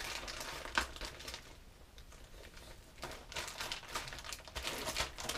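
Clear plastic zip-top bags of soft plastic fishing lures crinkling and rustling as they are handled, in two bouts with a quieter spell in between.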